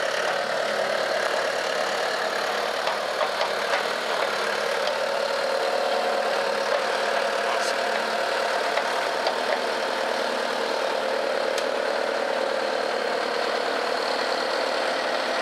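Engine idling steadily, with a few faint ticks.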